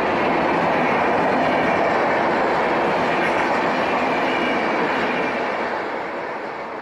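Express train of LHB passenger coaches running past at about 110 km/h: a loud, dense, steady rush and rattle of wheels on the rails. It fades over the last second or two as the final coach goes by.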